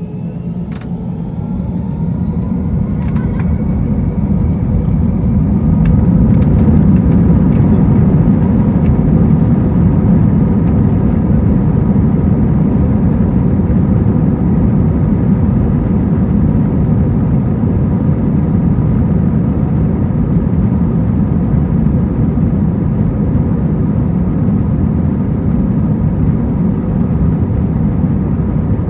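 Airbus A321-200 jet engines spooling up to take-off thrust, heard inside the cabin from a seat over the wing: a rising whine and a swelling roar over the first few seconds, then a loud steady roar with the low rumble of the take-off roll.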